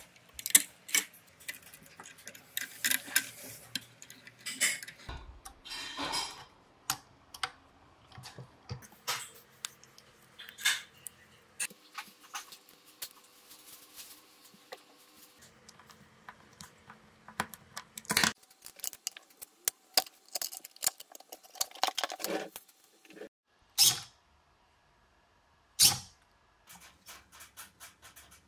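Clicks, taps and light scraping of small hardware being handled and fitted: screws, bolts, an Allen key and 3D-printed plastic parts against plywood on a workbench. The sounds come in short separate stretches with sudden changes in the background between them.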